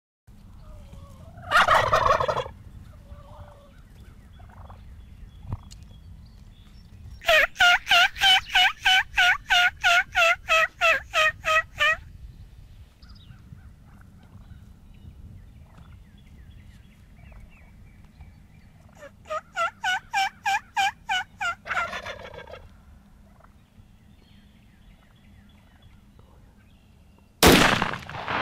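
Wild turkeys calling: a gobble, then a long run of about eighteen evenly spaced yelps at roughly four a second, a shorter run of yelps and another gobble. Near the end comes a single loud gunshot with a fading echo.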